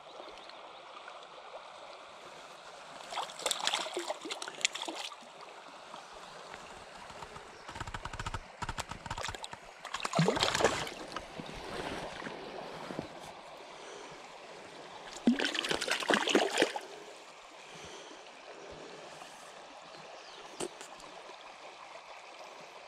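Shallow stream running over stones with a steady trickle, broken three times, about three, ten and sixteen seconds in, by short bursts of splashing as a small hooked brown trout thrashes at the surface while it is brought to hand.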